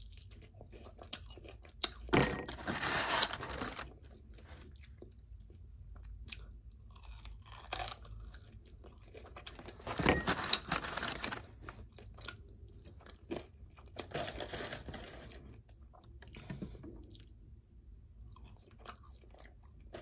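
A person chewing crispy fried chicken wings and fries close to the microphone, with three louder crunchy bites about 2, 10 and 14 seconds in.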